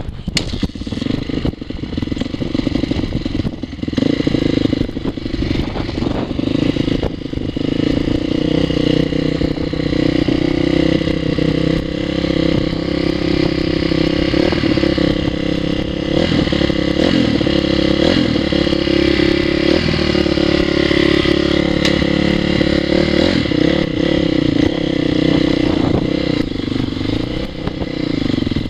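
2002 Honda CRF450R's four-stroke single-cylinder engine running under way, its pitch rising and falling with the throttle.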